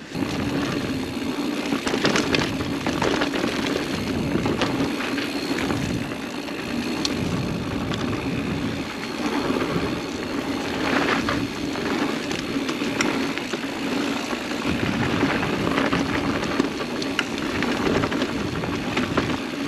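Mountain bike riding fast downhill on a dirt singletrack: tyre noise on the dirt, with frequent clicks and knocks from the bike over bumps, over a steady buzz. The sound comes up suddenly at the start as the bike gets going.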